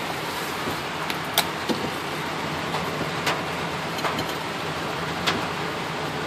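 Heavy rain and wet-road noise heard from inside a car's cabin: a steady hiss, with a handful of sharp taps on the car.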